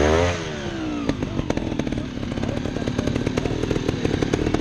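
Trials motorcycle engine blipped sharply right at the start, its pitch falling back within about a second, then running at low revs with a crackling exhaust while the rider works the bike slowly over rocks.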